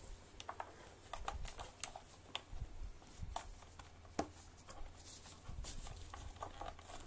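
Scattered light clicks, taps and knocks of a screwdriver and vacuum-cleaner parts being handled, with a few sharper clicks about two, three and a half and four seconds in.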